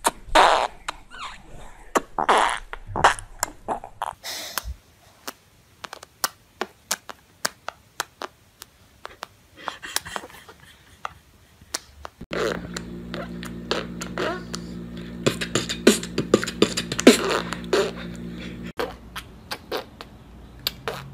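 Babies blowing raspberries and making mouth pops and lip smacks, a long string of short sputters and pops. A steady hum sits underneath for several seconds in the middle.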